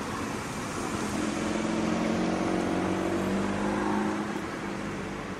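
Transrapid 09 maglev train gliding slowly along its guideway, giving out an electric hum of several steady tones. The hum swells about a second in and fades again near the end.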